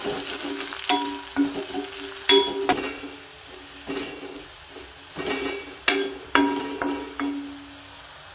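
Crushed garlic cloves frying in oil in a metal kadai over a low flame, sizzling while a steel spatula stirs and scrapes them. Several sharp knocks of the spatula against the pan each leave a brief metallic ring, fewer near the end.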